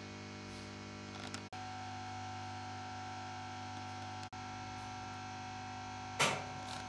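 Gaumont Kalee Duosonic valve cinema sound amplifier giving off steady mains hum: a low buzz with many overtones and a faint high steady whistle. The sound drops out for an instant twice, and a short burst of crackling noise, the loudest moment, comes near the end.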